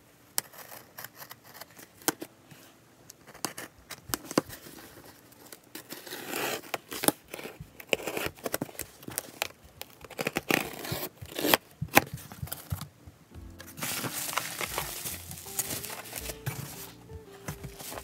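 Craft knife scoring and slitting packing tape on a cardboard box, with sharp scrapes, taps and tape tearing in irregular strokes. From about two-thirds of the way in, steady crinkling and rustling of packing material as the box is opened.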